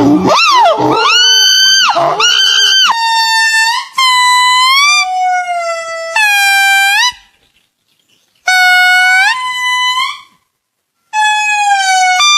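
A monkey calling: a few quick rising-and-falling calls, then a run of loud, held, horn-like calls about a second each, several bending up in pitch at the end, broken by two short silences.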